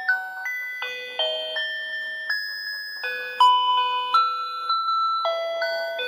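Spinning toy fishing game playing its built-in electronic tune: a simple melody of clean beeping notes, about two a second, often two or three tones at once.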